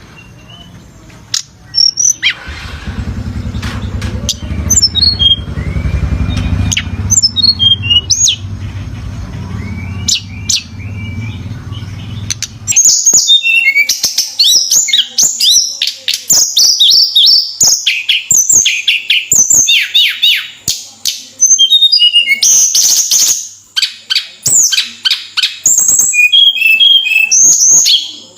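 Tledekan gunung songbird singing in high, fast chirping phrases. The calls are scattered at first, then become a dense, loud run of song from about halfway through. A low steady hum sits under the first half and stops about halfway through.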